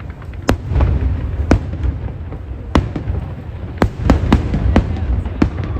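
Aerial fireworks shells bursting: about ten sharp cracks and booms over a continuous low rumble, coming faster and closer together in the second half.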